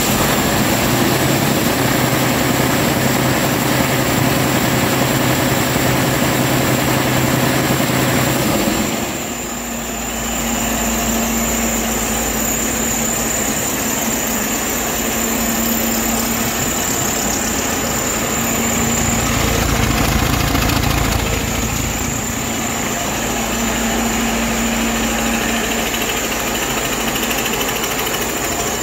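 2018 Detroit Diesel DD13 inline-six truck diesel engine running steadily on a test stand, a used engine in good running order. Its note changes and briefly dips in level about nine seconds in, then carries on steadily.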